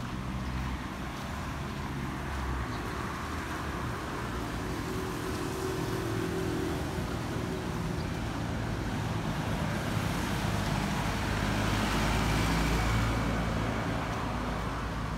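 Road traffic running steadily, with one vehicle passing close, growing louder and then fading near the end.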